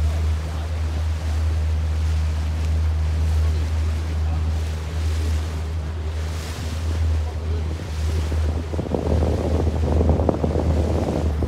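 Motorboat engine running with a steady low drone, under the rush of water and wind noise on the microphone. The rushing grows louder about three seconds before the end.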